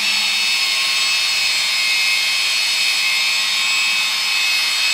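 Rotary polisher running steadily at speed with a high whine as its pad works compound over black car paint in the pre-polishing step after wet sanding. It cuts off abruptly right at the end.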